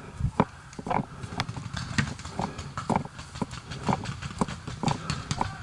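A paintball player's running footsteps on grass and dirt, about two footfalls a second.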